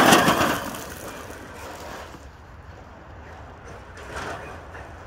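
Losi TEN-SCTE electric RC short-course truck, with a Leopard brushless motor, speeding past close on a gravel driveway. It is loud as it goes by, then fades quickly as it drives away, leaving quieter motor and gravel noise.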